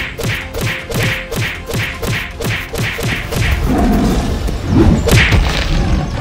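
Cartoon fight sound effects: a steady run of heavy thuds, about three a second, giving way to a louder rumbling stretch with a sharp crash about five seconds in.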